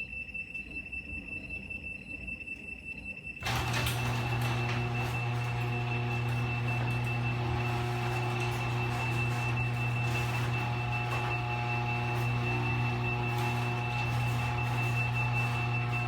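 Electric garage door opener closing the door by remote command: a rapid series of warning beeps, then about three and a half seconds in the opener motor starts with a steady loud hum and the rattle of the door travelling down.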